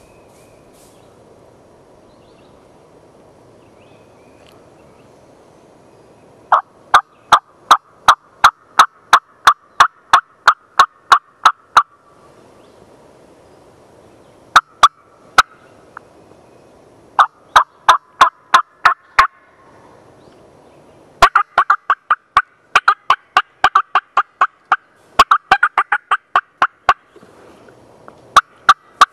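Loud runs of hen turkey yelps, about four sharp notes a second, beginning about six seconds in and repeating in several bursts; they sound like a hunter working a turkey call. Faintly in the distance, a wild turkey gobbler answers with gobbles.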